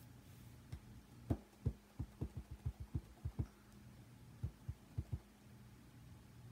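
Clear stamp mounted on an acrylic block tapped again and again onto a foam ink pad to ink it: a quick run of about fifteen soft, dull taps that stops shortly before the end.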